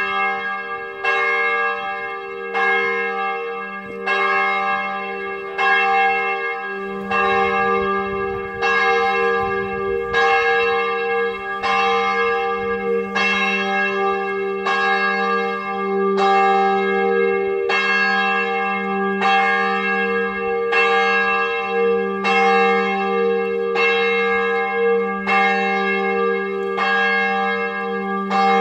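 Abbey church bells pealing from the bell tower: a strike about once a second, several bells' tones ringing on and overlapping.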